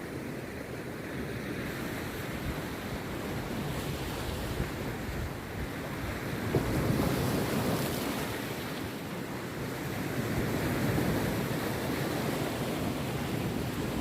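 Rough sea surf breaking and washing up the beach in continuous waves, swelling louder about halfway through and again later, with wind rumbling on the microphone.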